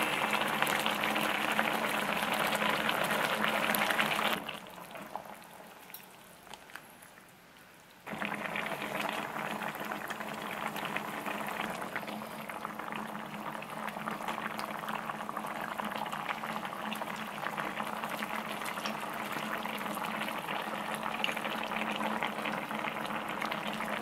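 Thick pork-and-kimchi stew boiling hard in a pot, its bubbles popping and crackling. The sound goes quiet for a few seconds after about four seconds in, then the steady bubbling returns, a little softer.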